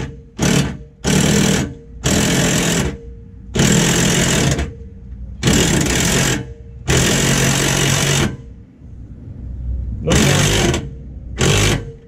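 Power impact driver tightening a threaded-rod bolt through the dock deck in about eight short bursts of up to a second each, with brief pauses between.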